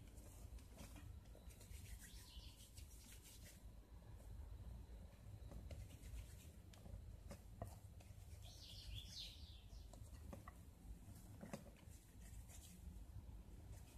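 Near silence: faint soft taps and rubs of hands dividing pizza dough and rolling it into balls on a glazed clay dish, over a low steady hum. A brief faint high chirping comes about nine seconds in.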